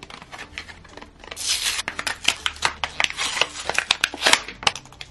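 A plastic blister pack being torn open from its cardboard backing: a dense run of crinkling plastic and ripping card with sharp crackles, starting about a second and a half in after some lighter handling.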